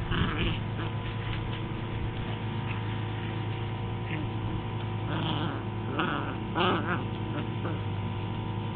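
A heeler and a Catahoula puppy play-fighting, with a few short high yelps and whines just after the start and again three times between about five and seven seconds in. A steady electrical hum runs under them.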